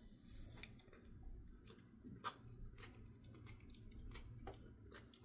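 Jindo-mix dog chewing softly, a string of faint, irregular mouth clicks.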